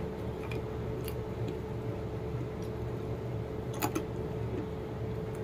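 A steady low hum with a few faint, scattered crisp clicks, the clearest one nearly four seconds in.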